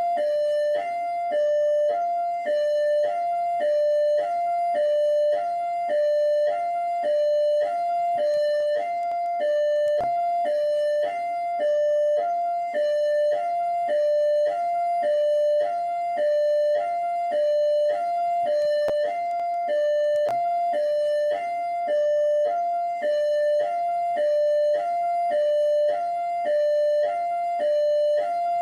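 Rio de Janeiro Military Police (PMERJ) siren in hi-lo mode: a high tone and a slightly lower tone alternate steadily, each held about half a second, repeating without a break.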